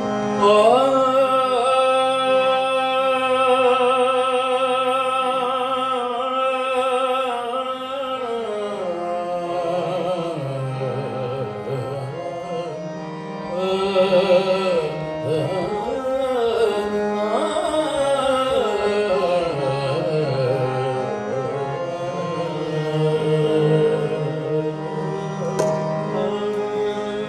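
Sikh kirtan: men singing a Gurbani shabad in a wavering, ornamented melody over harmonium, with tabla accompaniment.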